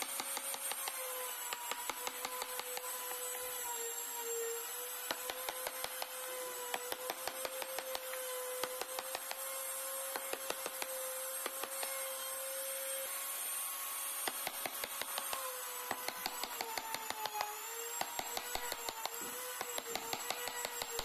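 Wood-carving chisel cutting into a wooden door panel: runs of quick, sharp taps, several a second. A faint steady hum that wavers slowly in pitch runs underneath.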